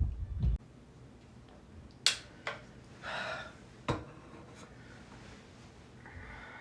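Quiet room with a few sharp soft clicks and a brief rustle.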